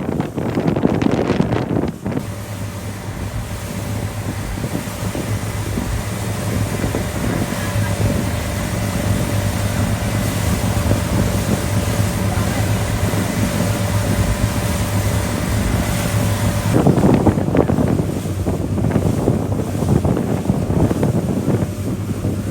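A boat's engine running steadily as a low hum, with wind buffeting the microphone in the first two seconds and again for the last several seconds.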